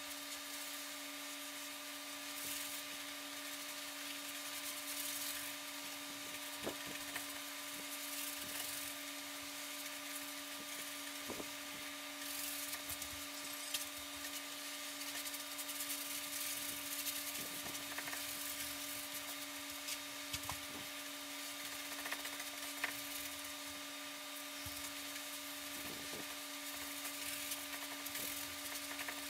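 A steady electrical hum over a hiss, with scattered faint ticks and knocks.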